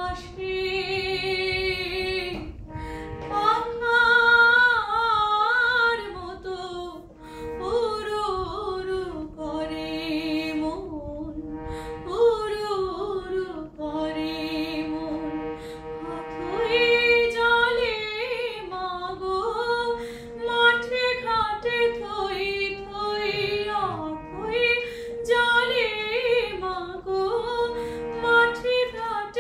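A woman singing a slow, ornamented melody in phrases, accompanying herself on a harmonium whose held notes sound steadily under her voice.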